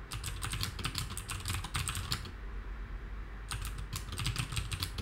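Typing on a computer keyboard: a fast run of keystrokes, a pause of about a second just after the middle, then another run of keystrokes near the end.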